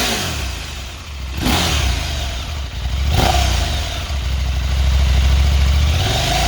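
Husqvarna Norden 901's parallel-twin engine through its stock OEM mid pipe and muffler, revved in three quick throttle blips about one and a half seconds apart, then held at higher revs for about two seconds before dropping back.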